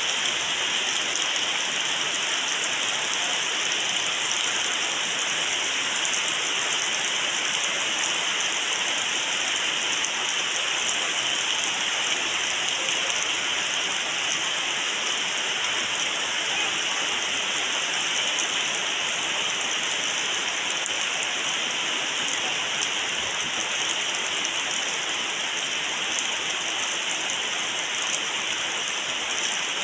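Steady rain falling: an even, continuous hiss of many drops with no letup.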